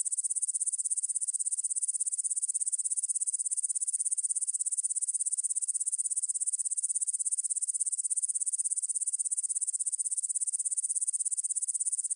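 Crickets chirping in a continuous, dense high-pitched trill of rapid pulses, filtered so that no background sound is left.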